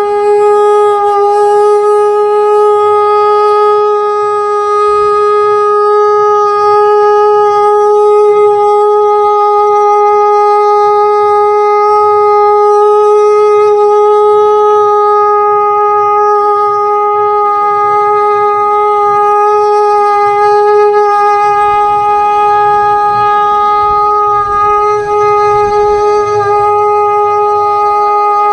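A sankh (conch shell trumpet) blown in one long, loud, unbroken note that holds a steady pitch. A fainter second tone bends up and back down briefly, once about a second in and again near the end.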